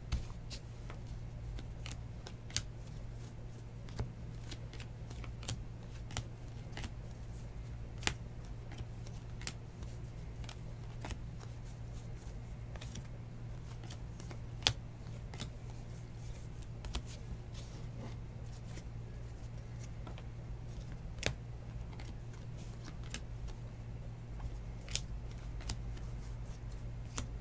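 Baseball trading cards being leafed through and sorted by hand: scattered soft clicks and snaps of card edges, with a steady low hum underneath.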